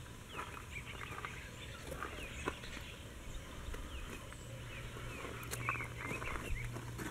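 Birds chirping over and over in short, often falling calls, with a low steady hum underneath.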